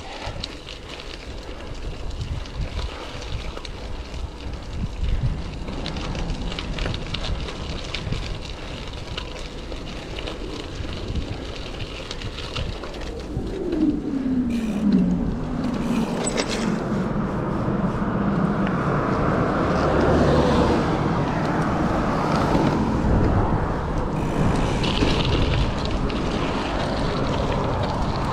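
Wind noise on the microphone of a moving bicycle, with a motor vehicle passing about halfway through, its engine pitch falling as it goes by. The noise grows louder in the second half.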